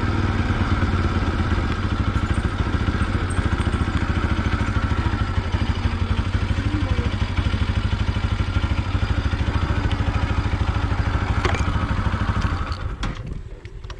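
Motorcycle engine running steadily with an even, fast pulsing, then cutting off near the end.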